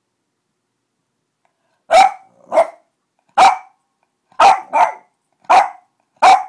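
Boston terrier barking: about seven short, sharp barks starting about two seconds in, two of them in quick pairs.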